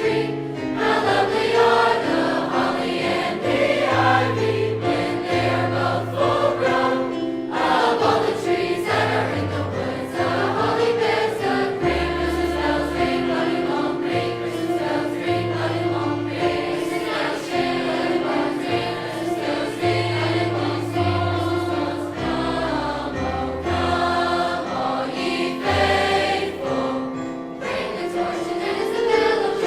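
High school choir singing in parts, with sustained low accompaniment notes that change every second or so beneath the voices.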